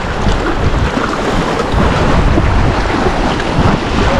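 Wind buffeting the microphone over the wash of the sea, a loud, even rushing that rises and falls.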